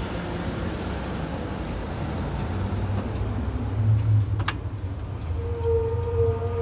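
Steady low rumble of city street traffic. A single sharp click comes about two-thirds of the way in, and near the end a steady pitched tone begins.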